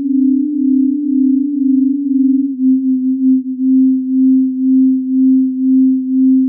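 The Death Whistler sound effect: a single low, pure electronic tone held at one pitch. It steps slightly lower a bit over two seconds in, then swells and fades about once a second.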